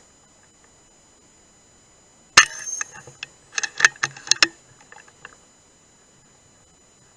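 A single air rifle shot cracks about two seconds in, with a short ringing tail. About a second later comes a quick flurry of sharp clatters as the feral pigeons flap up off the metal roof.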